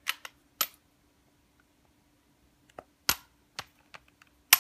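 Sharp metallic clicks of a Dan Wesson 8-inch CO2 BB revolver being handled, its cylinder swung open. A few small clicks come in the first second, then a pause of about two seconds, then five louder clicks spaced about half a second apart, the loudest near the end.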